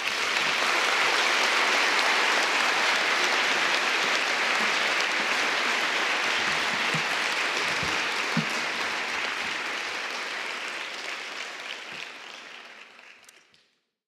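Audience applauding, a dense steady clapping that starts right after the introduction ends and fades away over the last few seconds.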